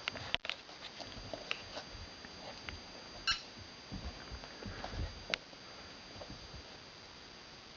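Australian Shepherd puppy scampering and pouncing on carpet while playing with a toy football: scattered soft thumps and taps of paws and toy, with one short high squeak about three seconds in.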